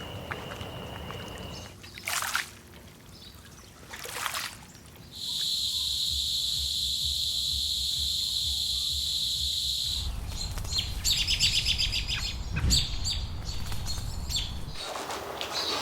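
Outdoor nature ambience recordings cut one after another: two short swishes, a steady high shrill drone lasting about five seconds, then birds chirping with crackly clicks.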